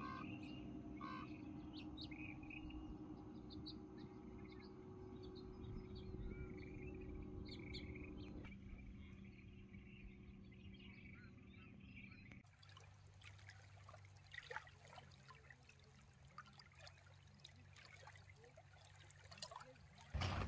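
Faint outdoor ambience: small birds chirping over a low steady hum. The background changes abruptly about eight seconds in and again about twelve seconds in.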